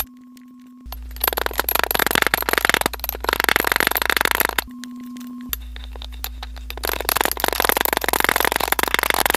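Kinetic sand crunching and crackling as a wooden rod tamps it down inside a glass: a dense run of tiny crackles, broken off at the very start and again for under a second about halfway through.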